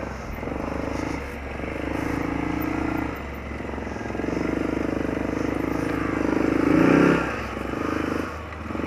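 Arctic Cat 650 H1 ATV's single-cylinder four-stroke engine, freshly rebuilt with a Wiseco piston, running under varying throttle. Its note rises with a rev about seven seconds in, then eases off.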